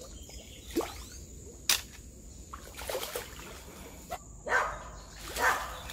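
A dog barking several times in short calls, while a hooked tambaqui splashes at the water's surface.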